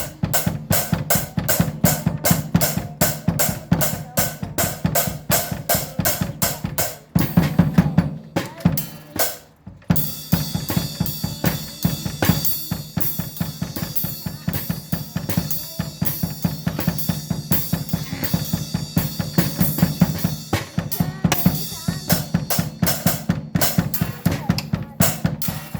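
Drum kit played in a fast steady beat, kick, snare and cymbals, about four to five hits a second. Around seven seconds in it gets heavier, drops out briefly near ten seconds, then the beat picks up again.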